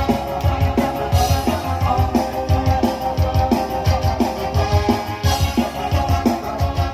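Live tarling band playing an instrumental passage over a steady drum-kit beat, amplified through a loud PA system.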